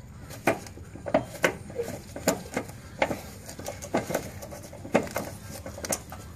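Light, irregular metallic clicks and clinks as the 13 mm bolt on a brake-line bracket in the wheel well is worked loose by hand, about two a second.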